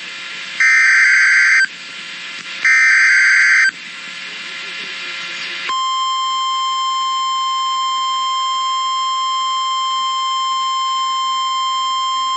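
Emergency alert broadcast signalling: the last two of three SAME header data bursts, each about a second long, a pause with hiss, then from about six seconds in the steady 1050 Hz NOAA Weather Radio warning alarm tone, which announces that a warning message follows.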